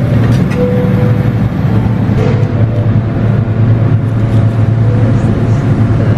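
A steady low mechanical hum with a faint higher tone, from running machinery.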